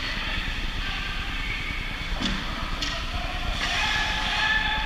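Steady noise of a game hall with a crowd, with two sharp knocks a little over two seconds in and faint voices near the end.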